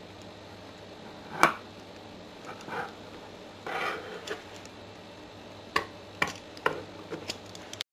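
Small metal clicks and short scrapes from working bent paper-clip picks against a hinged handcuff: one loud click about a second and a half in, brief scraping a little later, then several lighter clicks near the end.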